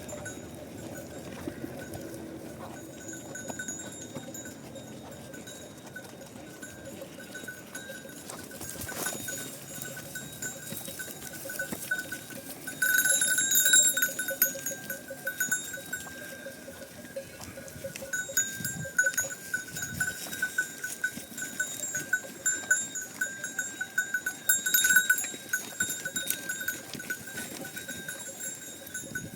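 Metal bells on a moving flock of livestock jangling continuously, many rapid ringing strikes, getting louder a little under halfway through.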